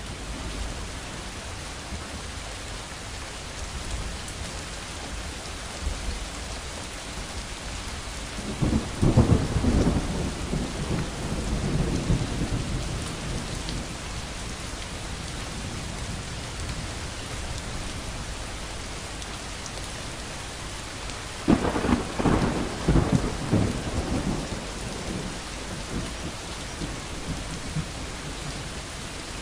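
Thunderstorm: steady rain with two peals of thunder. The first is a deep rumble about a third of the way in; the second, about three-quarters through, starts with a sharper crack and rumbles on for a few seconds.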